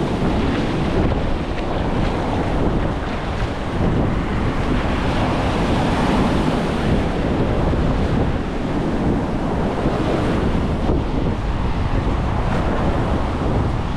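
Ocean surf breaking and washing up the sand, a steady rushing wash, with wind buffeting the camera's microphone.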